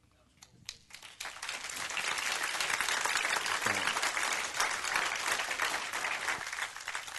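Audience applauding: scattered claps at first, swelling within about a second and a half into full applause that thins out near the end.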